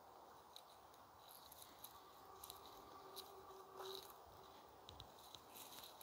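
Near silence outdoors, with faint footsteps on a dirt path as light scattered ticks and crunches. A faint steady tone comes in about two seconds in and fades near the four-second mark.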